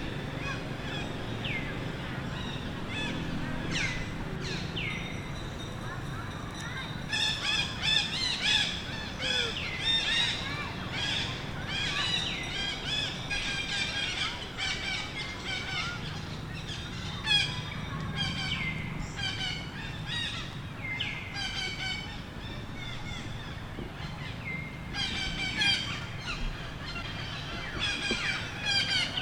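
Baby monkey crying for milk with repeated high-pitched squeals. A few short falling cries come first, then a dense run of squealing from about a quarter of the way in.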